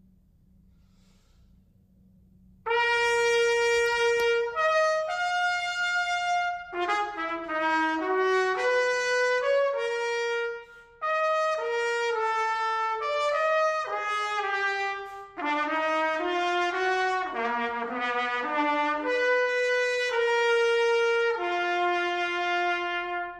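Bach Stradivarius 37 trumpet being play-tested after repair. After a couple of seconds of faint hum it plays a melodic phrase of separate notes with two short breaks, ending on a long held note.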